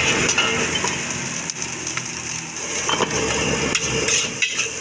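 Metal spatula scraping and knocking against a large steel wok as fried rice is tossed and stirred, with the rice sizzling in the hot pan. A few sharper clanks stand out over the scraping.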